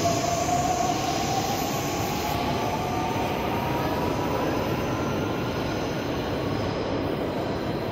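Electric regional train pulling out, its traction motors whining in a tone that rises slowly as it gathers speed, over the steady rumble of a large station hall.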